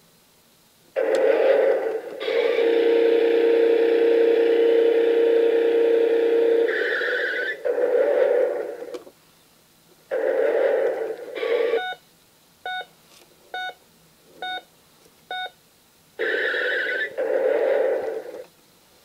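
Electronic sound effects from a toy car's push-button sound panel, played through its small speaker: several short noisy clips, one long steady tone lasting about four seconds, then a run of short beeps about a second apart.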